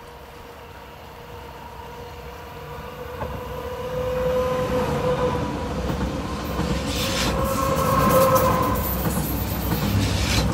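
RBS electric commuter train approaching and passing close beneath, its steady electric drive whine growing louder as it nears. Rapid wheel clatter on the rails joins in as the cars go by underneath.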